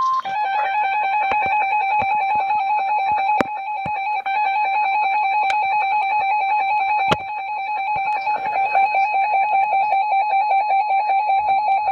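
Emergency Alert System attention signal: the steady two-tone alert tone that announces an emergency alert, here a flash flood warning, with scattered sharp clicks.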